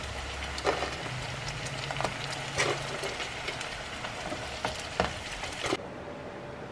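Crab pieces frying in a pan of bubbling butter sauce: a steady sizzle with scattered pops and a few sharp knocks as shell pieces go into the pan. The sizzle cuts off suddenly near the end, leaving a quieter room hum.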